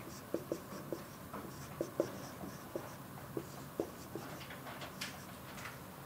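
Dry-erase marker writing on a whiteboard: short, irregular squeaks and ticks, one for each stroke.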